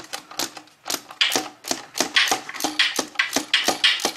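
Ratchet wrench clicking in quick, even strokes, about five clicks a second, as it backs out a 10 mm throttle-body bolt on a 3800 V6.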